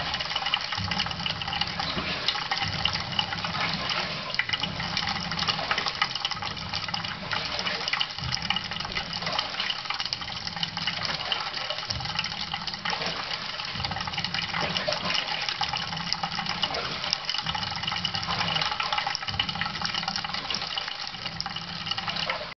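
Thin stream of tap water running steadily into a washbasin, with many small splashes and drips as a budgerigar bathes under it and in a small plastic dish.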